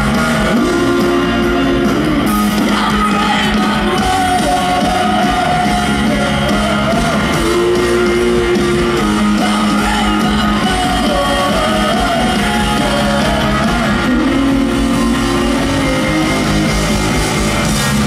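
Rock band playing live through a loud PA: a woman sings long held notes into a microphone over electric guitar, bass and drums.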